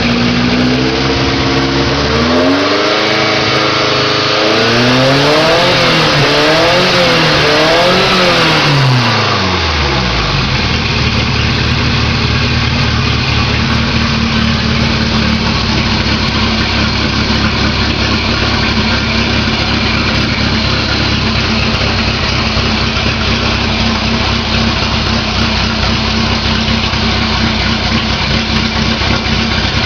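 Naturally aspirated Volkswagen Gol engine running loud through a 4-into-1 exhaust header. It is revved up and down repeatedly, in quick blips, for about the first ten seconds, then settles to a steady idle.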